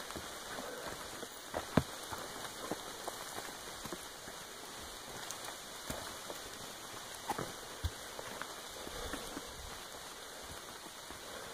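Footsteps and phone-handling knocks while walking up a rocky, leaf-strewn trail: scattered, irregular clicks and thumps over a steady hiss.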